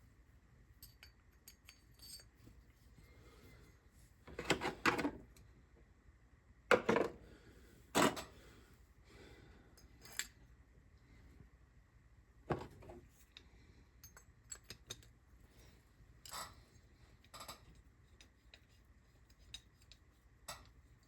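Metal hand tools and small engine parts clinking and clanking on a workbench: scattered light ticks with a few sharper knocks, the loudest about seven and eight seconds in.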